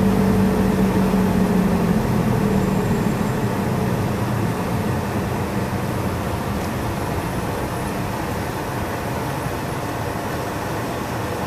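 Car engine and tyre noise heard from inside the cabin, a steady hum that gradually dies down as the car slows to a stop.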